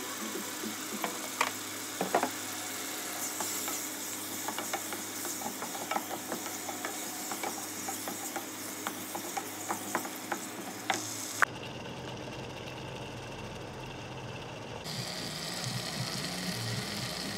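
Wooden spatula scraping and tapping against a pan while ground spices are stirred into a sizzling tomato-onion masala: a steady frying hiss with irregular sharp clicks. The clicks stop about two-thirds of the way through, where the sound cuts abruptly to an unbroken hiss.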